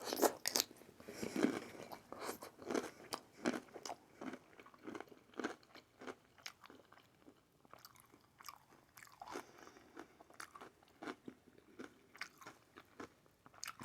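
A person chewing and crunching a mouthful of aguachile verde (raw shrimp and scallops in a green lime-chile sauce), with irregular wet mouth clicks that come thickly at first and thin out in the second half.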